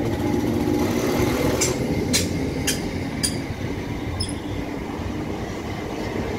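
Northern Class 769 bi-mode multiple unit pulling out and passing close by: a steady low rumble, with four sharp clicks about half a second apart in the first half.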